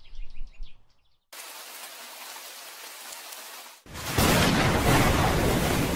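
Rain sound effect: a steady hiss of rain begins about a second in. About four seconds in it gives way to a much louder thunderstorm of heavy rain with a deep rumble of thunder.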